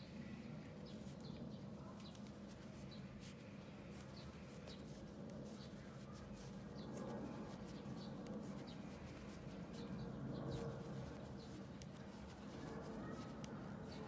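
Faint ticks and rustle of wooden circular knitting needles working fluffy yarn, over a low steady hum, with scattered short high chirps.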